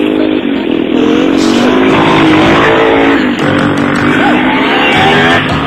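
All-terrain vehicle engine running, its pitch falling, rising and falling again as it revs and eases off.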